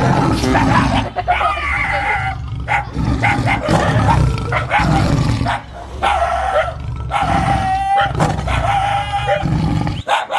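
A dog barking repeatedly, some of the barks drawn out into short yelps.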